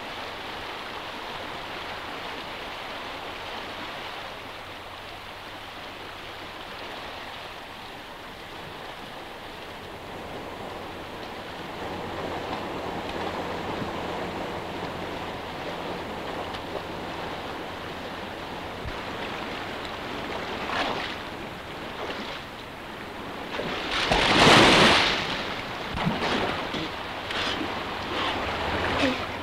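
Rushing river water running steadily. About three-quarters of the way through comes a loud splash as a man goes into the river, followed by several smaller splashes.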